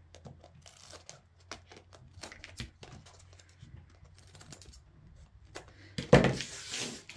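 Scissors making a run of short, crisp snips while trimming a glittered sheet away from a clay piece. A louder knock and rustle comes about six seconds in.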